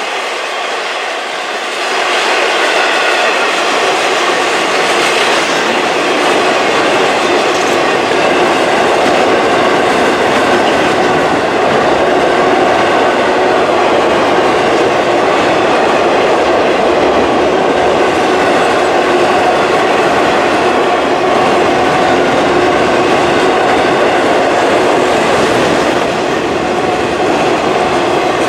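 Train's railroad cars rolling past on the rails, a steady clatter with a few held ringing tones from the wheels. It grows louder about two seconds in and then stays even.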